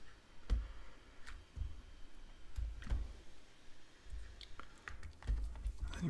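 Scattered light clicks and a few soft low knocks from hands handling an opened Nintendo Switch console while switching it off.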